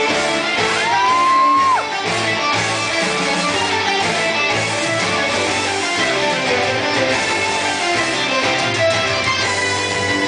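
Loud guitar-driven music with a steady beat. About a second in, a single high tone slides up and holds briefly over it.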